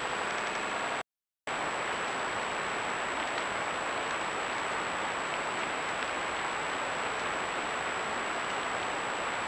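Steady hiss from a trail camera's microphone with a constant thin high whine, broken by a half-second dropout about a second in.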